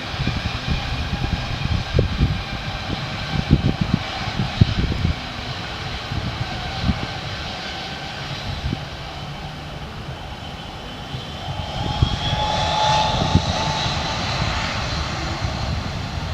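Airliner engines running, with a steady whine. About twelve seconds in, a higher whine rises in pitch and grows louder.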